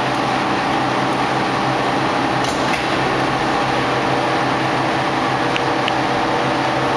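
R160B subway train standing in the station, its ventilation and electrical equipment giving a steady hum of several fixed tones, with a few faint ticks.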